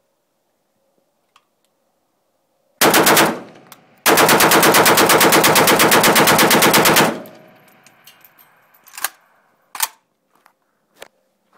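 Arsenal SLR-101S milled AK rifle in 7.62×39mm being bump-fired: a short burst of a few shots, then after about a second a rapid string of evenly spaced shots, roughly nine or ten a second, lasting about three seconds and stopping abruptly. A few light clicks and clacks of the rifle being handled follow.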